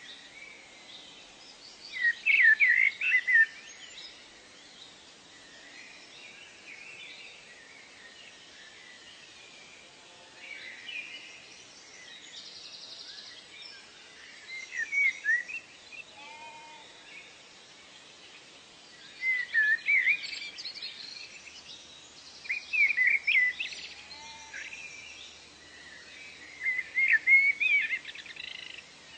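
Songbirds singing: short phrases of quick, high chirping notes recur every few seconds over a faint steady background hiss.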